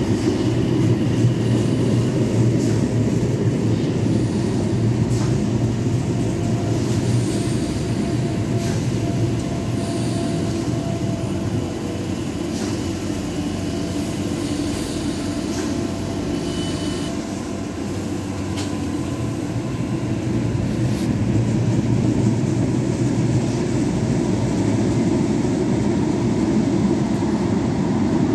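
Tyne and Wear Metrocar electric train running through an underground station with a steady low rumble of motors and wheels. It eases slightly while the train stands at the platform, then grows again as the train pulls away.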